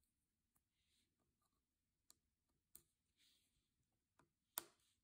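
Faint small plastic clicks and light rustling as a key's hinge clips are pressed into the key mechanism of a Logitech MX Keys keyboard: a few scattered clicks, the loudest one near the end as a part snaps into place.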